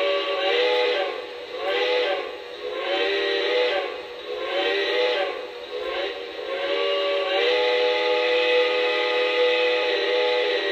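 Multi-chime steam locomotive whistle from a model train's sound system. It gives about six short notes, each bending up and back down, roughly one a second, then from about seven seconds in is held as one long steady blast.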